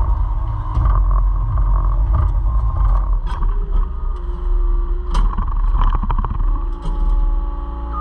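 Caterpillar 256C skid steer's diesel engine running steadily, heard from the operator's cab, with a few sharp clanks about three, five and seven seconds in as the rock grapple handles broken concrete.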